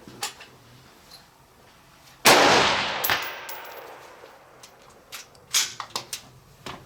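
A single rifle shot about two seconds in, its loud crack followed by a long rolling echo that fades over about two seconds. Softer clicks and knocks follow near the end.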